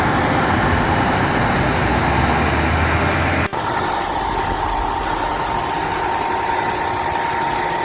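Heavy machine engine running with a steady low rumble. About three and a half seconds in, it cuts abruptly to a quieter, steady machine noise with a constant whine.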